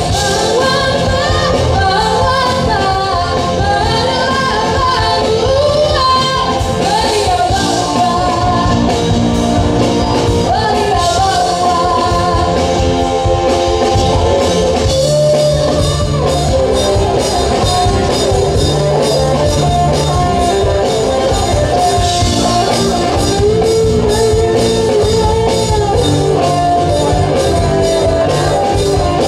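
Live rock band playing loudly: a sung melody over electric guitar, bass guitar, keyboard and a drum kit.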